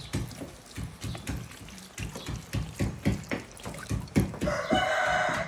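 A series of light knocks and clatters, then near the end a rooster crows once, a held call of about a second and a half.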